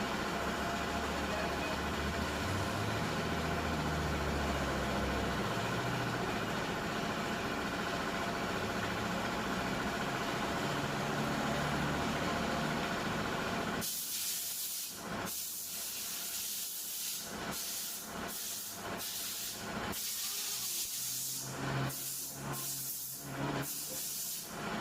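Compressed air hissing in a series of short blasts that begin about halfway through, eight or more of them, some brief and some longer. Before the blasts there is a steady low rumble.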